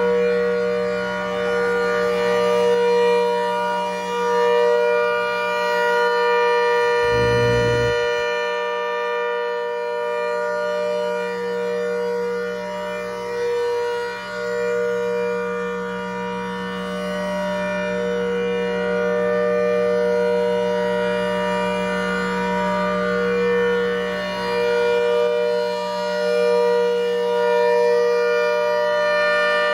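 Hurricane 130 civil-defence siren sounding a steady, held chord of several tones. There is a short low rumble about seven seconds in.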